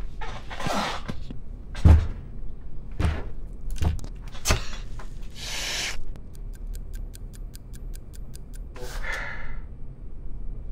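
A few dull knocks and thumps on a meeting-room table as a man fumbles with the table's cable hookup. About five seconds in comes a short rush of noise, then a fast, even ticking of about six clicks a second for two seconds, and near the end a short breathy sound.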